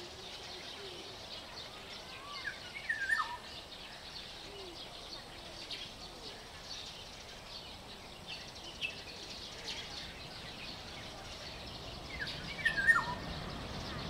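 Black-naped oriole singing: a short fluty whistled phrase that slides in pitch, about three seconds in and again near the end, over faint high chirps from other birds.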